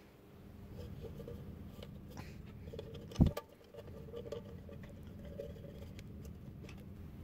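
Tin can being handled while a small air-hose fitting is fixed into a hole in its base: light rubbing, scraping and small metallic clicks, with one thump about three seconds in.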